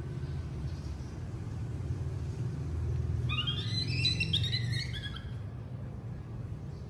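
A baby monkey gives a quick run of high-pitched squeals and chirps lasting about two seconds, starting about three seconds in, over a steady low hum.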